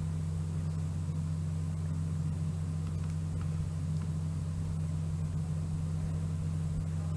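A steady low hum with no speech.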